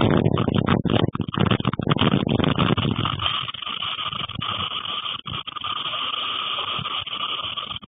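Strong storm wind gusting, with a heavy, choppy low rumble for about the first three seconds that then eases to a steadier hiss.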